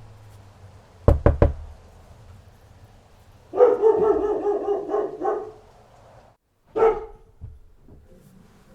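Dog barking: a fast run of barks lasting about two seconds, then a single bark. About a second in, three sharp knocks come in quick succession.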